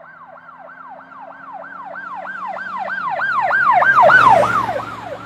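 Ambulance siren wailing up and down rapidly, about three sweeps a second, as the vehicle passes. It grows louder to a peak with a rush of passing-vehicle noise about four seconds in, then fades away.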